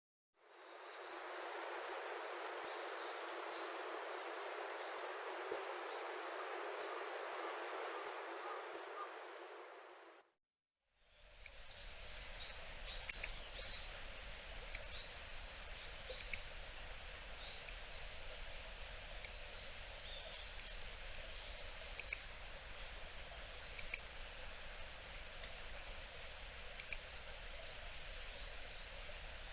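Hawfinch calling: short, sharp, high-pitched call notes. In the first part they come irregularly, several bunched together; after a brief silence about ten seconds in, single calls repeat steadily about every second and a half.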